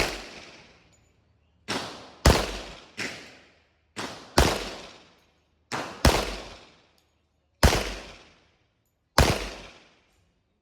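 A string of about ten gunshots at uneven intervals, some louder and some fainter, each followed by a ringing echo that dies away over about a second.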